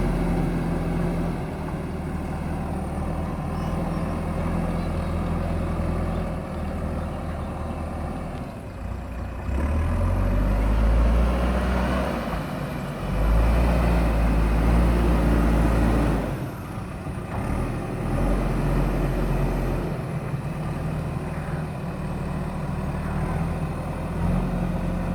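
Diesel engine of a JCB backhoe loader running under working load. It grows louder twice around the middle of the stretch and then eases back to a steady run.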